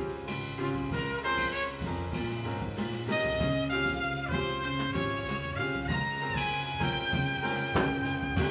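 Jazz quartet playing live: a trumpet plays the lead line over piano, electric bass and a drum kit keeping time.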